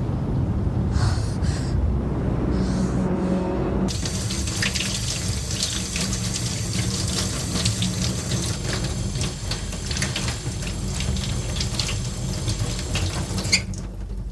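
A kitchen tap running, its water splashing into a metal sink and over hands being washed. The water starts suddenly about four seconds in and stops abruptly near the end with a click.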